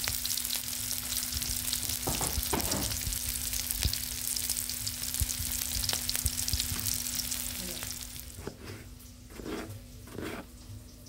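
Sliced garlic, shallots and green chilies sizzling in hot oil in an iron wok, stirred and scraped with a metal spatula. Near the end the sizzling gives way to a few knife cuts on a wooden chopping board.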